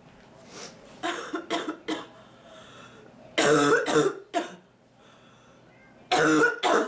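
A woman's coughing fit: groups of short, hacking coughs, a few lighter ones about a second in, then a loud run of coughs about three and a half seconds in and another just before the end.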